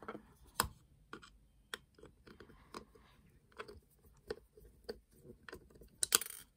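Hands handling a small plastic toy electric train, with scattered clicks and scrapes as its bottom cover is opened. A louder rattle of plastic comes about six seconds in.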